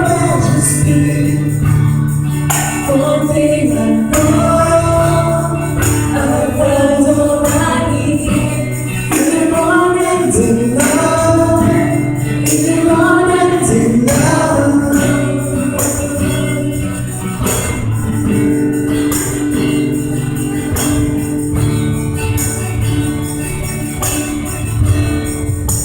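A live church band and singers performing a worship song. Voices sing gliding melodic lines over a steady bass, with jingling percussion marking the beat.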